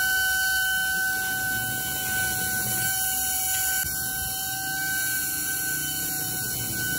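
Small DC hobby motor spinning a plastic propeller on a toy car: a steady high whine over a hiss of air.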